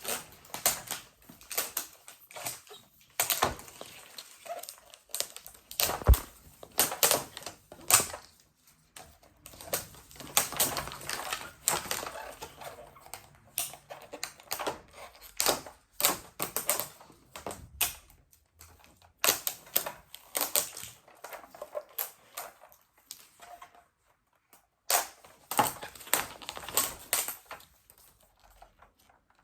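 Toy packaging being handled and opened by hand: irregular crinkling and crackling clicks with a few louder knocks, pausing briefly a little over three-quarters of the way through.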